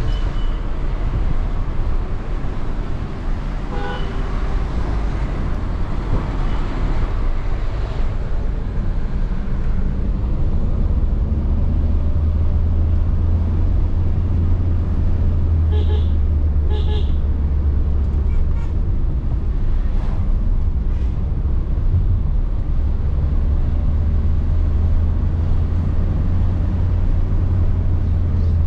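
A car driving along a road, its engine and tyre noise a steady low rumble. A brief pitched tone sounds about four seconds in, and two short high beeps come about a second apart a little past halfway.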